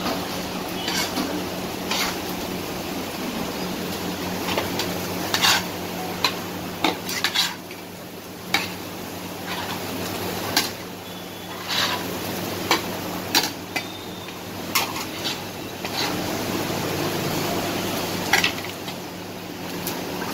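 Steel spatulas clanking and scraping on a flat iron griddle with sizzling, as kothu parotta is chopped and turned. The strikes come irregularly, a few at a time, over a steady background hiss and hum.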